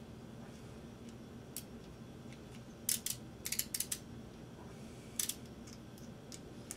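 Sharp metallic clicks from a small hand screwdriver and its bit being fitted and twisted together. There is a quick cluster of clicks about three seconds in and one more about five seconds in.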